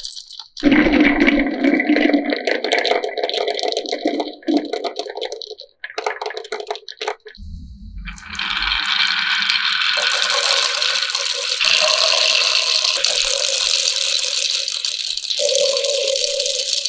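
Marbles rolling and clattering down a marble run's plastic rain-gutter and wooden-rail track. The first half is a busy run of clicks and knocks. After a short lull, a steadier rolling rattle with a ringing tone carries on to the end.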